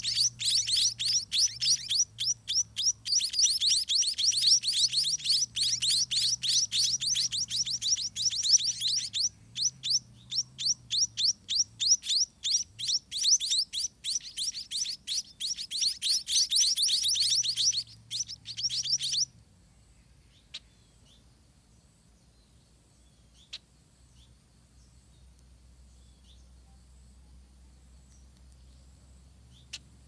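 Spotted munia (scaly-breasted munia) nestlings giving a rapid, high-pitched begging chorus of chirps while a parent feeds them; the chirping stops abruptly about two-thirds of the way through, leaving near quiet with a few faint clicks.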